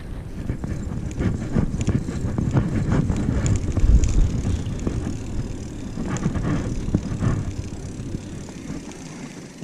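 Wind buffeting the microphone of a bicycle rider, with tyre noise on asphalt and scattered light rattles from the bike.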